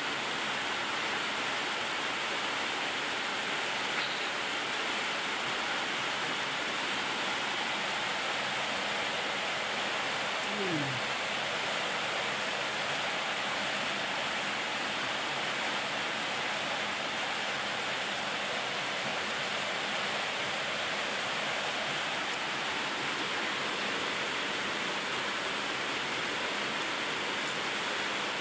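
Steady, even rushing noise with no rhythm or change, with a faint brief falling tone about eleven seconds in.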